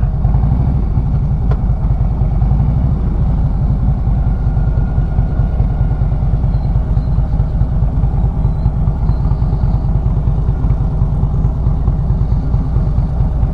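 Harley-Davidson motorcycle's V-twin engine running steadily at low speed as the bike rolls slowly along.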